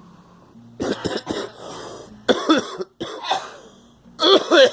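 A person coughing hard in repeated bouts. The first comes about a second in, two more follow in the middle, and the loudest comes near the end.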